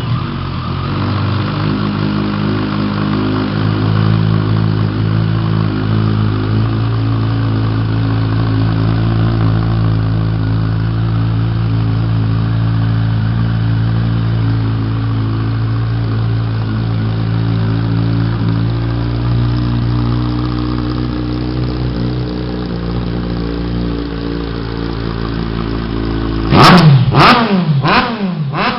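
Kawasaki ZX14's inline-four engine idling steadily through aftermarket 5-inch exhaust tips, freshly started. Near the end it is revved in three or four quick, sharp blips that rise and fall.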